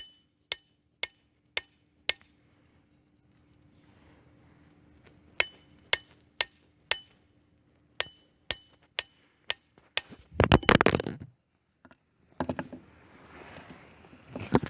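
Tapping the bottom end of a new wooden handle to drive a roofing hammer's head down onto it: three runs of sharp taps, about two a second, each with a brief ring. About ten seconds in there is a louder jumble of clattering and handling noise.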